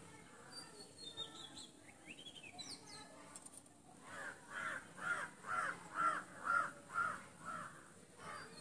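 A crow cawing over and over, about two caws a second, starting about four seconds in. Before that, faint chirps of small birds.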